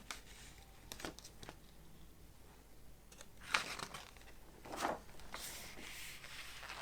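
Paper rustling and crinkling in short bouts, with a few light handling clicks; the loudest rustles come about three and a half and five seconds in.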